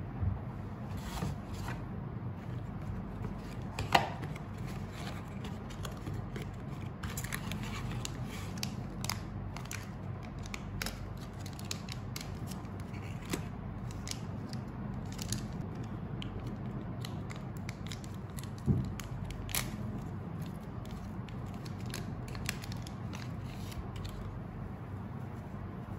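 Cardboard box of eye care wipes being opened, then a foil wipe sachet pulled out and torn open: scattered crinkling and small clicks, with two sharper clicks, a few seconds in and about two-thirds of the way through, over a steady low hum.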